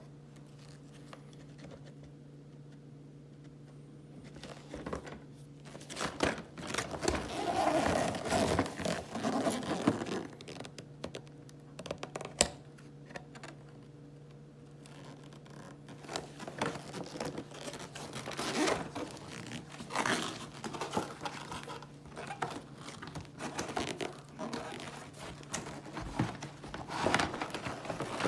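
Hot Wheels toy packaging being torn open and handled: irregular rustling, crinkling and tearing starting a few seconds in, with a sharp click near the middle and a short lull after it, over a steady low hum.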